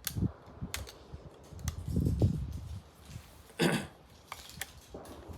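Rossi R92 lever-action rifle being handled to clear a cartridge that failed to feed: a few sharp metallic clicks, some handling thumps, then one short, loud rasping clack of the action about two thirds of the way in.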